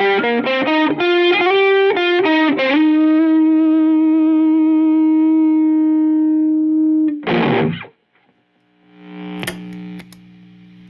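Electric guitar, a Fender Strat through an Egnater Tweaker amp, overdriven by a Wampler Plexi-Drive Deluxe with a little boost. A quick run of notes, then one held note ringing for about four seconds, a short strummed chord, then muted to near silence about eight seconds in. A faint note follows, with a sharp click near the end.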